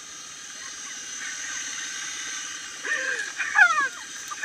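A four-wheeler engine runs steadily at a distance. About three seconds in, loud shouts with falling pitch break out over it, several in quick succession.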